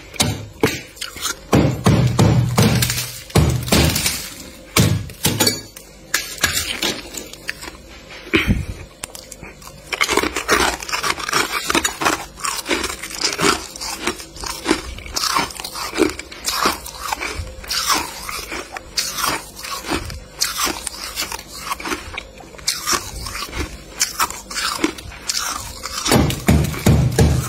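A metal blade scraping and chipping thick frost off freezer shelves: a long run of rapid crunchy scrapes as the frost breaks loose, with heavier thuds in the first few seconds and again near the end.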